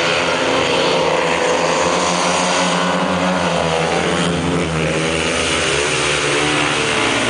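Four speedway motorcycles racing, their 500 cc single-cylinder methanol engines at full throttle, several engine notes overlapping with pitch rising and falling as the bikes come past and slide through the bend.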